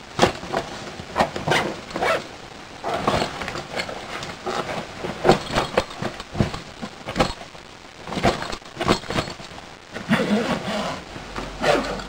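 A fabric backpack being handled: irregular rustling and scraping of the cloth and straps as hands grab, turn and lift it, with a few sharper knocks.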